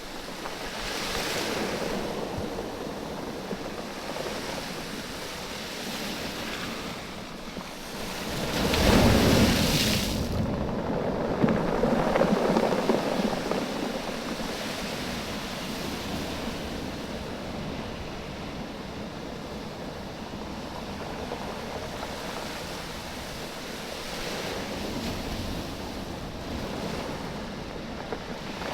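Waves washing in and out over a beach of smooth oval stones, the stones knocking and rattling against each other as the water surges and draws back. A bigger wave comes in about nine seconds in, followed by a longer, louder rush of water and stone clatter.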